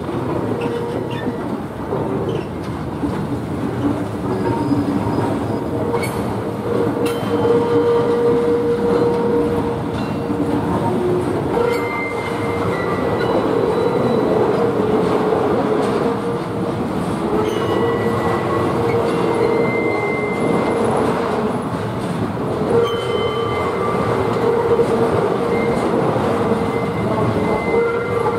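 Freight train of loaded flat wagons rolling steadily past, its wheels running on the rails. Thin high squeals from the wheels come and go over the rumble.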